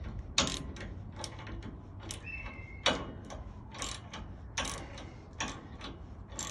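Hand ratchet clicking in short, irregularly spaced strokes as a 1/4-inch bolt is run down into a locking nut until it is tight.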